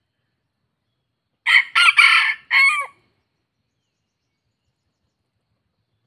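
Crossbred red junglefowl rooster crowing once: a short crow of about a second and a half in three parts, the last part falling in pitch.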